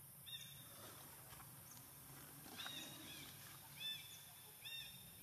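Baby macaque giving about five short, faint, high squeaks, each rising then falling in pitch.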